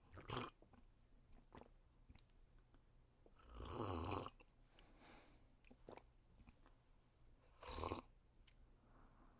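A person sipping coffee: three slurping sips, a short one at the start, a longer one lasting about a second midway, and another short one near the end, with faint small mouth clicks between.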